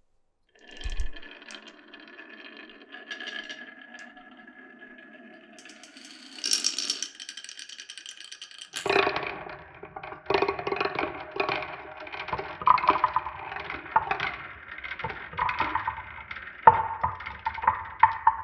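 Glass marbles rolling along a wooden marble run: first a steady rolling hum, then from about nine seconds in a busy stream of clicks and clacks as the marbles knock and rattle through the track pieces.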